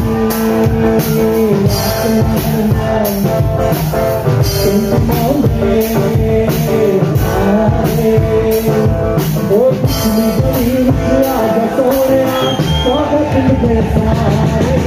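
Live band music with a singer: a sung melody over electric guitar and a steady drum-kit beat, played loud through a PA in a large hall.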